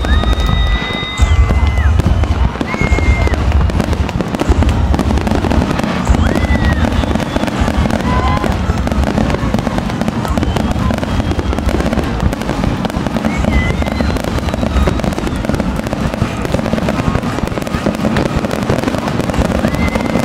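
Fireworks finale: a rapid, continuous barrage of booming shell bursts and crackle, with high whistling tones now and then over it.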